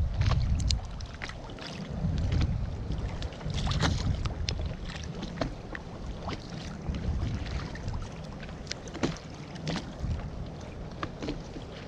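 Sea water lapping and slapping against the hull of an inflatable boat, with gusts of wind rumbling on the microphone and scattered short, sharp clicks and ticks.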